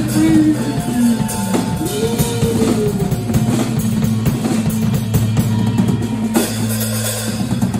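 Live rock band: drum kit playing busy fills with bass drum and snare over a sustained low note.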